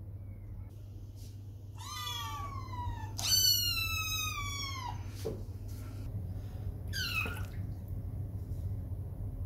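Kitten meowing three times, each call falling in pitch. The first two come a couple of seconds in, and the second is the longest and loudest. A short one follows about seven seconds in.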